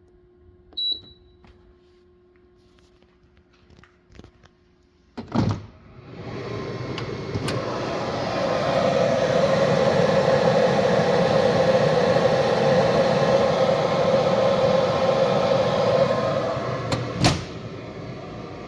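CEM MARS 5 microwave digestion system being started: a single short keypad beep, a few light clicks and a thump, then the unit runs with a loud steady whir for about ten seconds. Near the end a click cuts it back to a quieter steady running noise.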